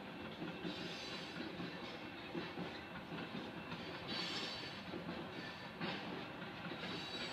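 Freight cars of a passing train rolling steadily by, steel wheels running on the rails in a continuous rolling noise. There are a few brief brighter hissing swells and one sharp knock about three-quarters through.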